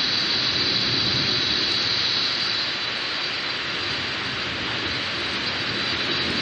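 Steady rushing hiss of heavy storm rain, with no thunder claps or other distinct events.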